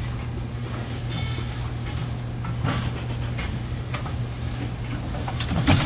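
Steady low machine hum, with a few scattered knocks and one louder clatter near the end.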